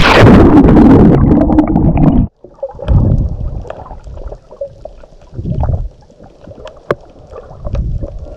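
Loud rushing wind and water noise aboard a sailboat, cutting off abruptly about two seconds in, then quieter uneven rustling with a few sharp clicks.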